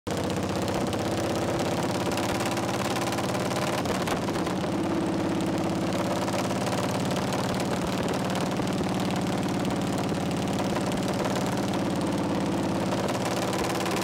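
Harley-Davidson Shovelhead air-cooled V-twin running steadily under way on a ridden chopper, its exhaust a rapid, even run of firing pulses.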